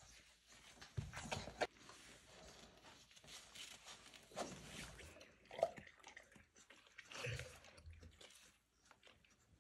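Boerboel puppies mouthing and play-biting, with faint scattered chewing and scuffling noises and a few short squeaks.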